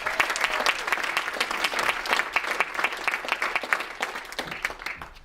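An audience applauding, thick clapping that thins and dies away toward the end.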